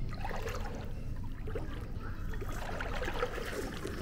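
Faint water trickling and lapping in a shallow splash pool, with small scattered noises over it.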